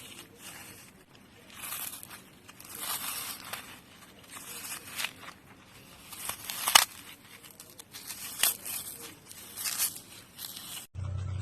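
Dry floral foam being crushed: irregular crunching and crumbling, with one sharp snap about two-thirds of the way through. Near the end it cuts abruptly to a steady low hum.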